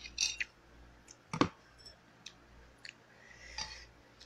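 Eating sounds: light clicks of a utensil against a dish and soft mouth noises while chewing, with one louder knock about a second and a half in.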